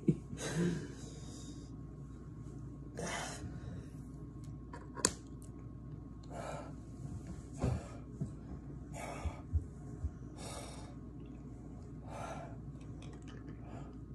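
A person taking sharp, heavy breaths, about one every one and a half to two seconds, after eating extremely hot Mad Dog hot sauce: breathing through the burn.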